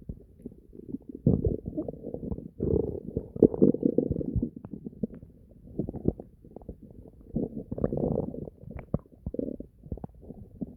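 A human stomach gurgling and growling in irregular bouts of bubbling rumbles, with short lulls between them.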